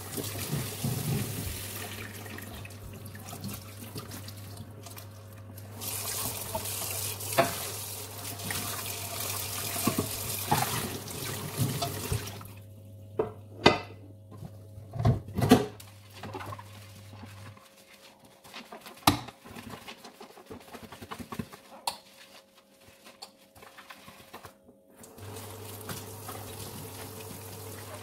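Kitchen mixer tap running into a steel sink while pots and pans are scrubbed and rinsed, with occasional sharp knocks of cookware against the sink. The water stops about halfway through and starts again near the end.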